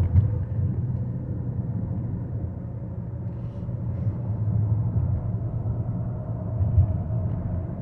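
Steady low rumble inside the cabin of a 2024 Toyota Venza hybrid cruising along the road, road and drivetrain noise, with a faint steady whine.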